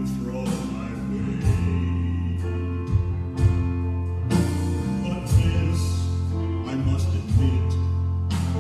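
A man singing a gospel song into a microphone, backed by a live band of drums, keyboard and guitar, with a held bass and drum hits about once a second.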